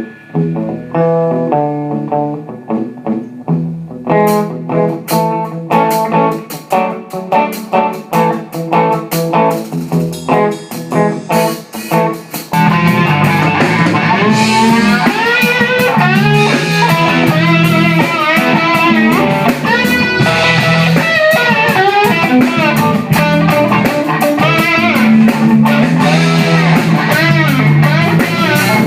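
Live blues-rock band playing: electric guitar picks a line over light drum and cymbal hits, then about twelve seconds in the full band comes in louder, the guitar playing bent lead notes over bass and drums.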